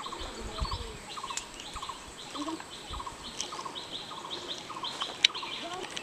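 Outdoor animal calls: short trilled chirps repeated in a steady rhythm about twice a second, with a few faint sharp clicks.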